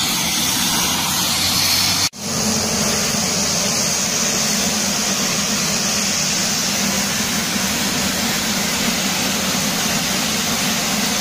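Twin turboprop engines of a Dornier 228 running close by: a steady, loud noise with a low hum under it. The sound cuts out for an instant about two seconds in.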